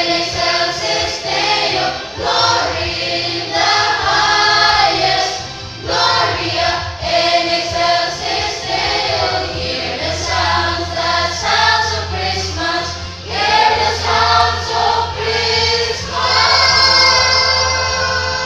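A choir singing, ending on a long held chord near the end.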